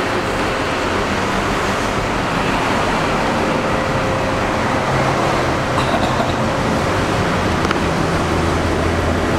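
Deep bass notes from music played through subwoofers driven by an ATV TD9 power amplifier under test. The low notes change about every second over a steady loud rushing noise.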